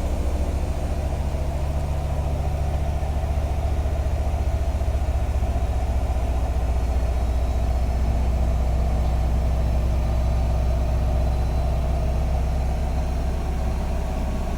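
Bosch WAT2846SIN 8 kg front-loading washing machine on its spin cycle: a loud, steady drone from the spinning drum, easing slightly near the end.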